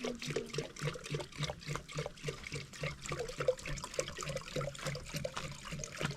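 Liquid trickling with many quick clicks and an even low pulse of about three to four beats a second.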